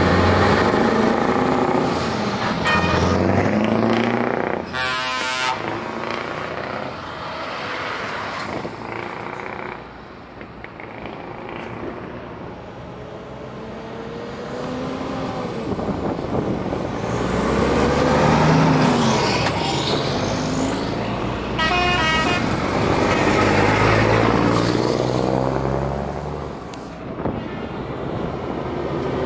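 Heavy show trucks (Scania R-series and Volvo FH tractor units) driving past one after another, their diesel engines rising and falling in pitch as they pull away. A truck horn blasts about five seconds in and again about twenty-two seconds in.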